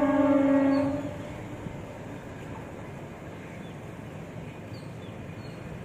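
WAG-9 electric locomotive horn sounding a long blast that cuts off about a second in, followed by a steady low rumble as the locomotives approach.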